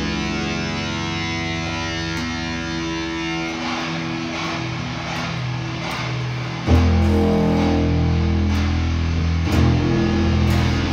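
Improvised instrumental music from an electric guitar and bass duo: distorted, effected guitar notes are held and layered. About two-thirds of the way in, a loud low note comes in suddenly and sustains under them.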